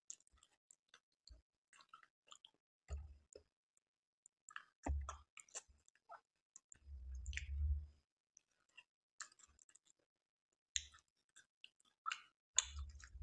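Close-miked mouth sounds of a person eating Indian sweets: soft wet chewing with lip smacks and small clicks. A few dull low thumps come in between, one a longer rumble about seven seconds in.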